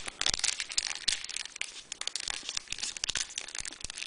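Foil wrapper of a Pokémon trading card booster pack crinkling and crackling in a dense, irregular run as fingers peel apart its back seam to open it without tearing the pack.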